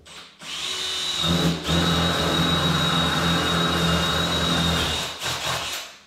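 Cordless combi drill with a flat wood bit boring into the edge of a wooden door, running at a steady speed with a high motor whine. It cuts off at about five seconds, with a short extra run just after.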